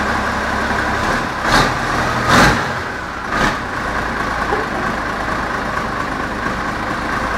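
Old tractor engine idling steadily, with three short bursts of louder noise in the first few seconds.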